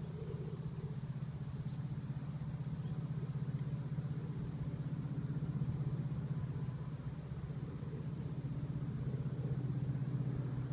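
Steady low hum of an engine or motor running, with a fast, even throb.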